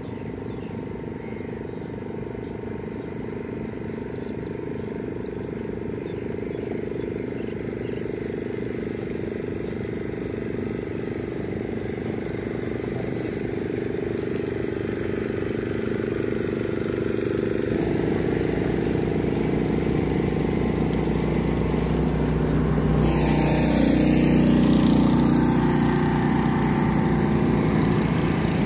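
Small motorboat engines running steadily, growing louder over the second half as the boats come past on the water.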